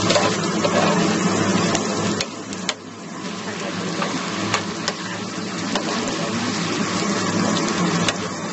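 Chopped onions, shallots, garlic, chillies and shrimp paste sizzling as they fry in oil in a pan, with a metal spoon clinking against the pan a few times as it stirs.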